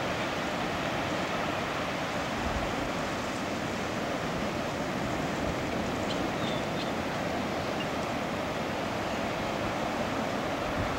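Steady wash of small surf waves breaking on the shore.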